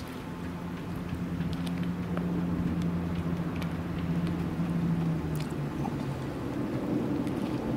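Boat engine running with a steady low drone that grows slowly louder; one of its tones drops away about five seconds in. Faint scattered ticks sit above it.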